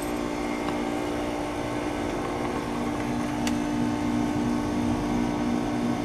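Outdoor heat pump unit running in defrost mode, giving off a steady hum with a couple of low, constant tones.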